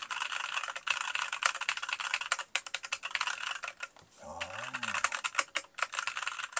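Fast, continuous typing on a mechanical keyboard tuned for quiet: foam-dampened case, masking-tape mod, switches lubed with Super Lube and O-rings under the keycaps. The keystrokes pause briefly about four seconds in, then resume.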